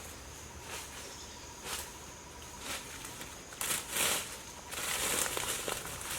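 Footsteps rustling through dry forest leaf litter, roughly one step a second, with a steady high hiss joining about three-quarters of the way through.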